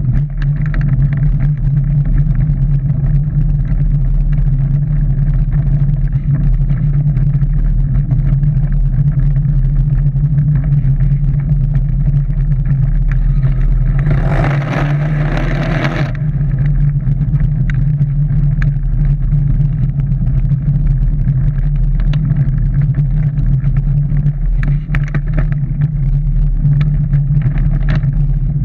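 Steady low drone of a Shell Eco-marathon prototype car driving, heard from inside its enclosed shell, with faint rattles. About halfway there is a louder rushing noise for about two seconds.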